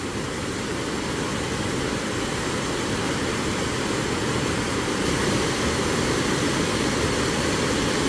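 Steady rush of a waterfall, heavy whitewater pouring over rock, slowly growing a little louder.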